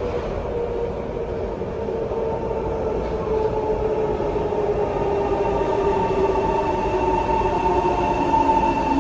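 SMRT C151 metro train's high-frequency chopper control and traction motors whining, the pitched tones gliding slowly downward over a steady running rumble. A steadier, higher whine grows in about five seconds in.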